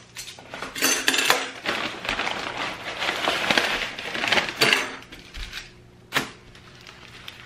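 Brown paper takeout bag and paper food wrapping rustling and crinkling as food is pulled out of the bag, for about five seconds. One sharp knock follows about six seconds in.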